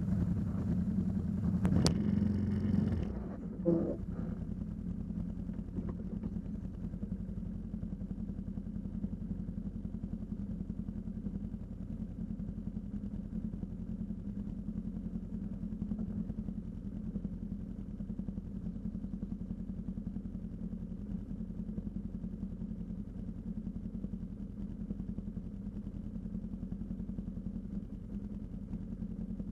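ATV engine idling steadily with a low hum. The first three seconds are louder and noisier, with a single knock shortly after.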